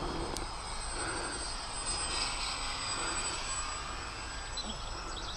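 Micro Draco RC plane's small electric motor and propeller giving a steady, fairly faint high whine as it flies.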